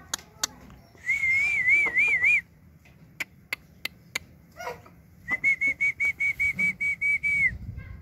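Whistling: a warbling whistle lasting about a second and a half, then a quick run of short whistle notes at the same pitch later on. Sharp clicks come in between.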